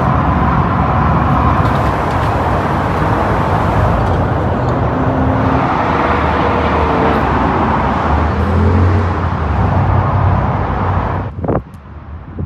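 Loud, steady motor-vehicle noise with a low hum underneath. About eleven seconds in it drops away briefly, with a single click, then returns.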